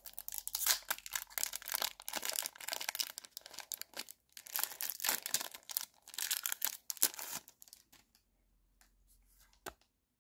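Foil wrapper of a Pokémon TCG booster pack being torn open and crinkled in the hands, crackling in bursts for about seven seconds with a brief pause partway. It then goes quiet apart from a single small click near the end.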